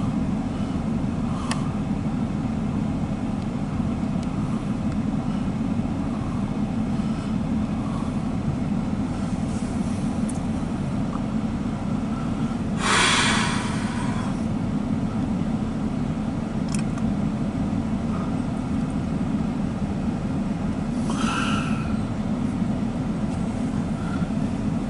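Rear cars of a loaded CSX coal train, steel-wheeled hoppers rolling over the rails, making a steady low rumble as they pull away. About halfway through there is a louder hiss lasting about a second, and a shorter one near the end.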